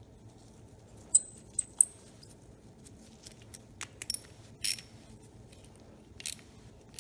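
Small metallic clicks and clinks of a hand tool and carburetor parts being handled: a series of short, sharp ticks with a bright ringing edge, the loudest two about a second apart early on, then several quicker clinks and two slightly longer scrapes.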